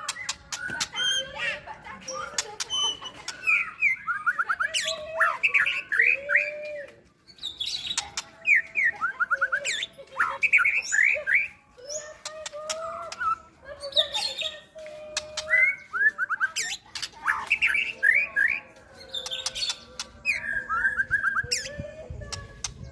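White-rumped shama singing a varied song. Low gliding whistles are mixed with fast high trills and sharp clicks, phrase after phrase with short pauses between.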